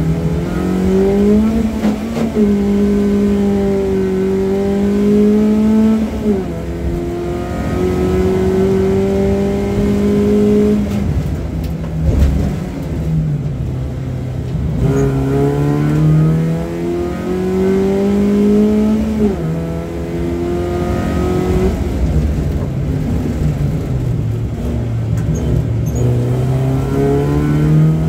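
BMW 318ti rally car's four-cylinder engine heard from inside the stripped, roll-caged cabin, driven hard through the gears. Its pitch climbs, drops sharply at each gear change, and sinks low on lifting off before pulling up again, several times over.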